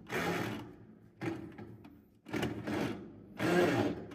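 A hand rubbing and turning the pulsator at the bottom of a top-loading washing machine's stainless-steel drum. It makes a rasping, whirring stroke about once a second, four strokes in all.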